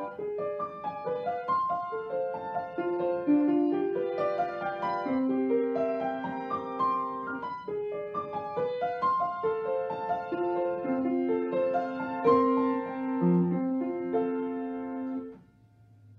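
Grand piano played solo: a melody of separate notes over held lower notes, with the piece ending about fifteen seconds in.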